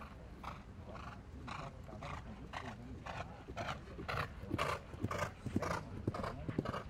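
Polo ponies cantering on a grass field, their strides coming in a steady rhythm of about two a second and growing louder past the middle.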